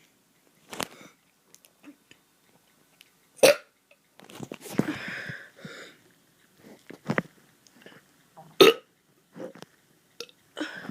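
A boy burping over and over: several short, sharp burps and one longer burp about four seconds in.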